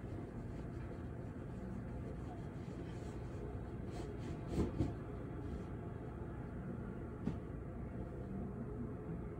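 Steady low rumble of distant city traffic heard from high up. A brief louder double sound about halfway through and a single sharp click a couple of seconds later.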